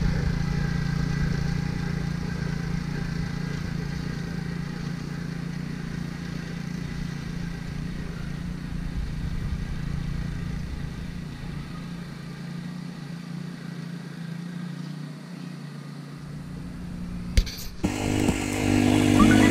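The small Honda engine on a Ryan Lawnaire core aerator runs steadily, growing fainter as the machine moves away across the lawn. Near the end the sound breaks off with a click and is replaced by something louder.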